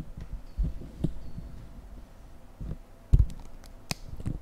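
Dull thuds and a few sharp clicks from card boxes being handled on a desk. The loudest thud comes about three seconds in, followed by a sharp click about a second later.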